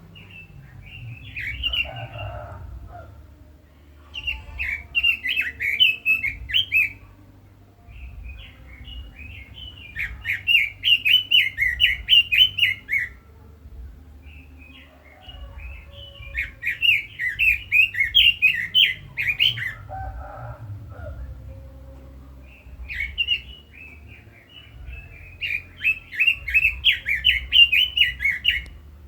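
Red-billed leiothrix singing: five bursts of rapid warbling notes, each a few seconds long, separated by pauses of a few seconds.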